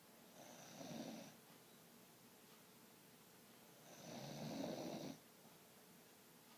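A sleeping dog snoring: two snores, one about half a second in and a longer, louder one about four seconds in.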